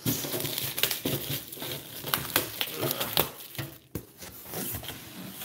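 Clear plastic packaging bag crinkling and tearing as hands pull it open inside a cardboard box, an irregular run of crackles and rustles.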